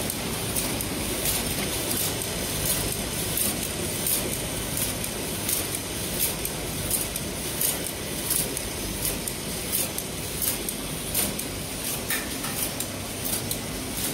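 Automatic disposable-cutlery packing machine running steadily, with a short high click or hiss repeating about every two thirds of a second as its rotating pick-and-place discs cycle.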